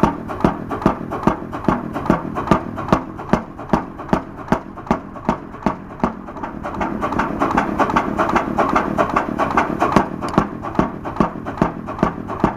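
100-horsepower stationary engine with twin flywheels running slowly, with an even clatter of about three knocks a second. The running noise grows louder for a few seconds around the middle, while the knocks keep their beat.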